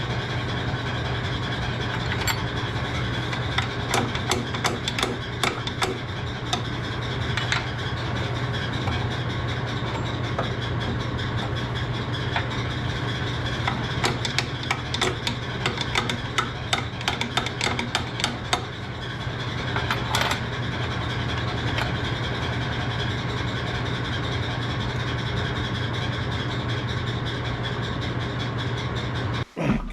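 A motor or engine running steadily with a low hum, with scattered metallic clicks and knocks, shutting off abruptly near the end.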